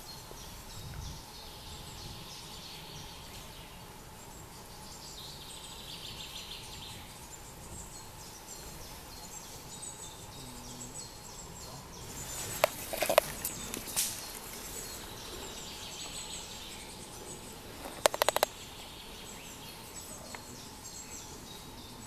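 Woodland ambience with distant songbirds singing faintly over a steady hiss. A cluster of sharp clicks comes a little past halfway, and a quick rattle of clicks comes toward the end.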